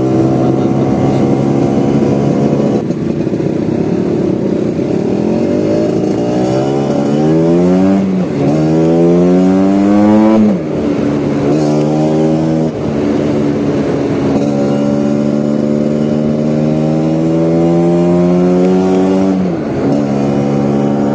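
Vespa scooter engine under way: it runs steadily, then revs up in two rising pulls about six to ten seconds in, with a sharp drop in pitch after each. It then holds a steady cruising pitch until the revs fall away near the end.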